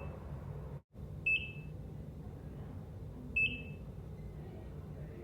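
ECG heart monitor beeping: two short, high beeps about two seconds apart, over a steady low room hum. The sound cuts out briefly just before the first beep.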